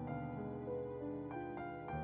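Soft background music: slow, gentle piano-led notes held over sustained tones.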